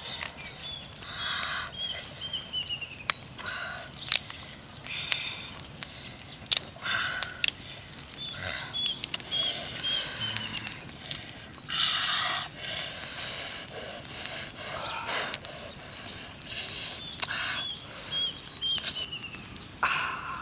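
A bird sings a short phrase of four or five falling notes, three times over, against sharp cracks and crackly rustles as a small cooked crab's shell is broken apart by hand.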